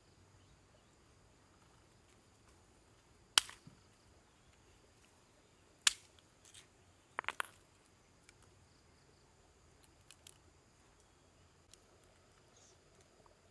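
Sharp cracks of a stone smashing snail shells against another stone: one about three seconds in, another near six seconds, a quick run of three about a second later, then a few faint ticks. The snails are being broken open for fishing bait.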